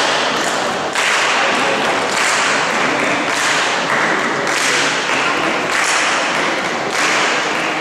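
Spectators clapping in unison, about one clap a second, each clap echoing through the large sports hall.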